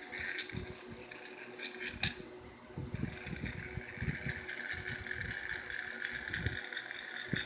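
Small electric motor and plastic gears of a Trackmaster toy engine whirring steadily as it runs with its wheels spinning freely in the hand, with a sharp click about two seconds in and light knocks from handling the toy.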